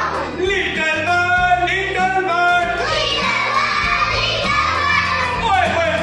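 Young children singing a song together in a group, with musical backing.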